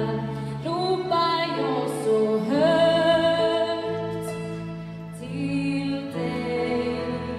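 A woman singing a song with live orchestral accompaniment, the orchestra holding long chords under her voice.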